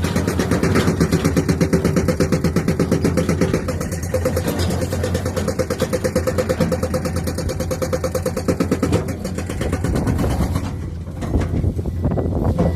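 Heavy excavator working rock, its diesel engine running with a rapid, even pulsing that eases off briefly near the end.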